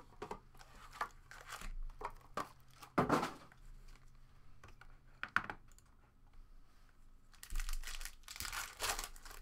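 Foil trading-card pack wrappers crinkling as a stack of packs is handled, in short rustles, with a longer spell of crinkling and tearing near the end as a pack is torn open.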